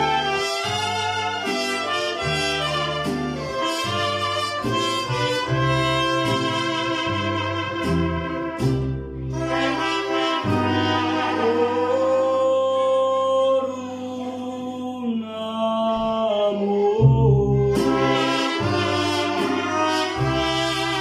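Mariachi band playing live: trumpets and violins carry the melody over strummed guitars and the plucked bass of a guitarrón, with a stretch of long held notes in the middle.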